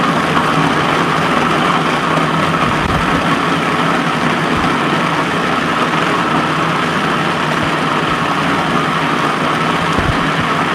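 Food processor motor running steadily, blending a thick cherry and date purée.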